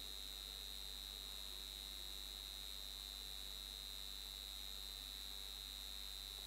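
Steady high-pitched electrical whine with a low hum underneath, unchanging throughout: background noise of the sound and recording system.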